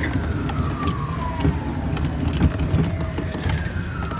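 A siren-like electronic tone that falls in pitch over about two and a half seconds, starting again near the end, over a steady low hum.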